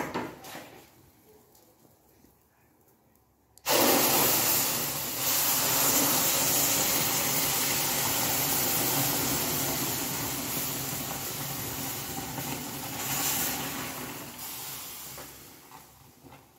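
Hot sugar syrup poured into a pan of freshly roasted semolina (suji), hissing and sizzling loudly as it hits the hot grains and throws off steam. The hiss starts suddenly about four seconds in and slowly dies down near the end.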